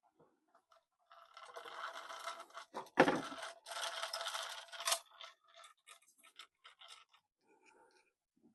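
Parts of a cuckoo clock movement and its chains being handled: scraping and rattling for about four seconds, with one sharp knock about three seconds in, then a few light clicks.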